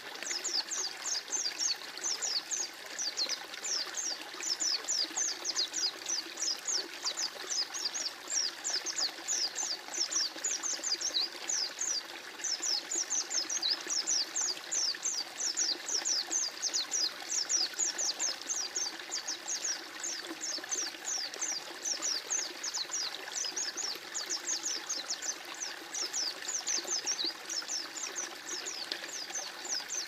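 Small songbirds chirping rapidly, an unbroken run of quick, high, descending notes several times a second, over the steady rush of a flowing stream.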